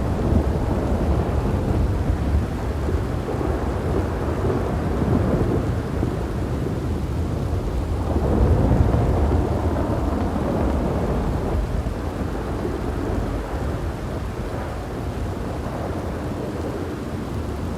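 Thunderstorm: steady rain with long, low rolling thunder that swells about halfway through and slowly fades toward the end.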